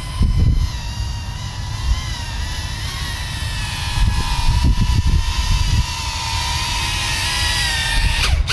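Small FPV quadcopter's electric motors and propellers whining, the pitch wavering up and down with the throttle, over gusty wind rumbling on the microphone.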